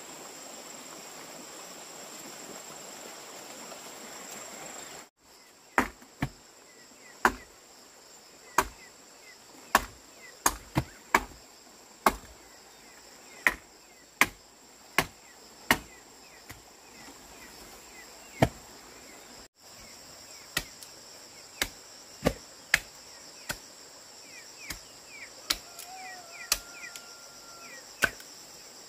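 Repeated chopping strikes, irregular and roughly one a second, starting about five seconds in, over a steady high drone of crickets or other insects.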